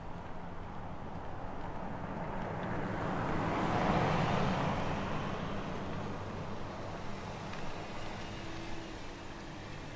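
A car driving past: tyre and engine noise swells to a peak about four seconds in, then fades away.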